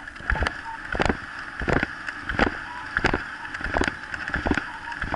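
Mountain bike rolling fast over a gravel forest track: steady tyre and wind noise, crossed by sharp knocks that come about every two-thirds of a second.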